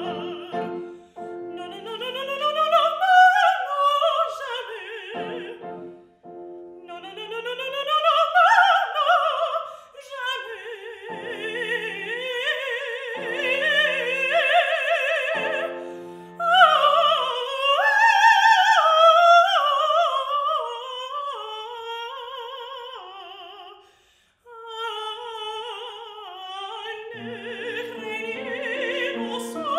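Mezzo-soprano singing an operatic aria with piano accompaniment: quick rising runs and held notes with vibrato, with a brief break about 24 seconds in.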